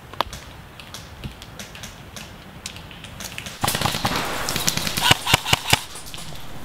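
Airsoft guns firing: one sharp crack just after the start, then a quick run of about five sharp shots about five seconds in, over a louder hiss.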